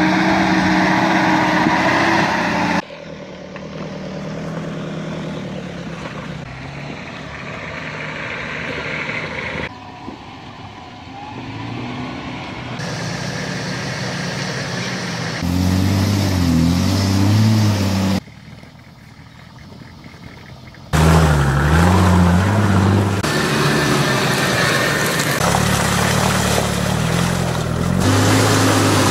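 Engines of off-road 4x4 SUVs working under load as they crawl through ruts, mud and water, the engine note rising and falling. The sound changes abruptly several times as one clip cuts to the next, each with a different vehicle.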